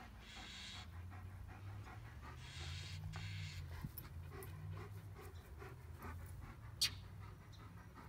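A dog panting in slow, breathy bursts over a low rumble, with one short sharp click near the end.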